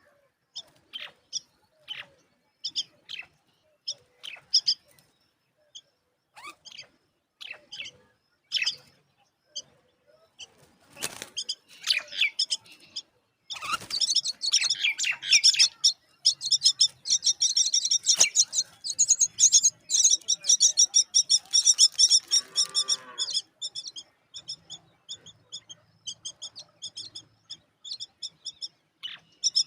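Myna chicks chirping at the nest: scattered short high calls at first, then about halfway through a dense, rapid run of repeated shrill chirps that keeps going.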